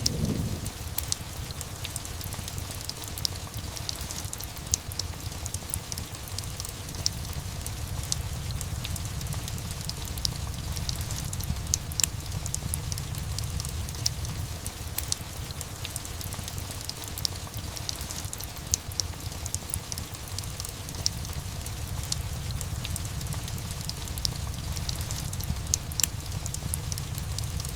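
Steady rain with a low, even rumble underneath, mixed with the sharp scattered pops and crackles of a log fire.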